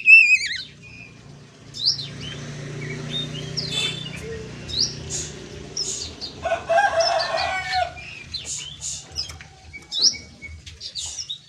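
Oriental magpie-robin (kacer) calls: a burst of warbling notes at the start, then scattered short rising chirps. A lower warbling phrase comes about seven seconds in, over a faint low hum.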